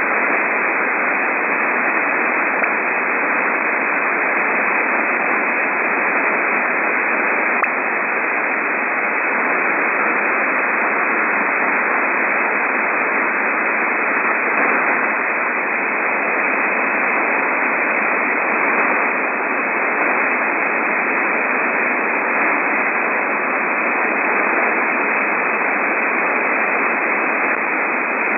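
Shortwave radio receiver tuned near 13 MHz, playing steady static hiss with a single brief tick about seven and a half seconds in. The ticks are unexplained random pips that come and go at varying strength in the 12.9–13.2 MHz range.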